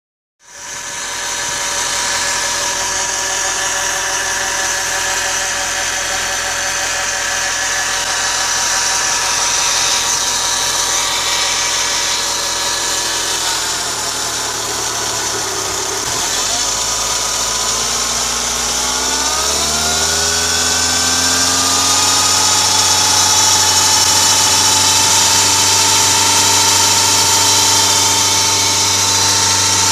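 Audi A6 2.0 TDI diesel engine (BRF) running, with a steady high tone over the engine note. About sixteen seconds in, the engine speed rises and then holds higher. The noise is the one the owner finally traced to the ribbed belt's deflection/guide pulley.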